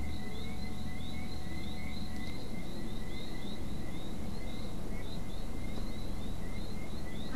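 Steady rhythmic chirping, about two to three short rising chirps a second, over a low hum that eases about two seconds in.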